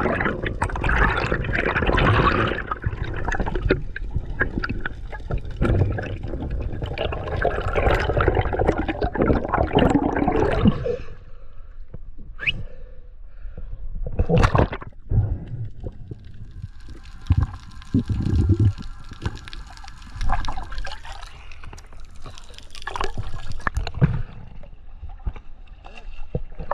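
Water sloshing and gurgling around a camera in the sea: dense and churning for the first half, then quieter after about eleven seconds, with a few sharp splashes or knocks.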